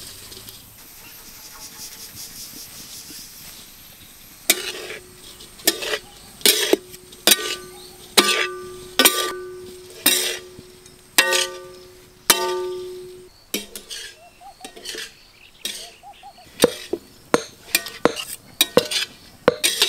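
Sharp metallic knocks, roughly one a second, some of them ringing briefly at the same pitch each time, like a steel kitchen vessel being struck with a utensil. The first few seconds hold only a faint, steady background.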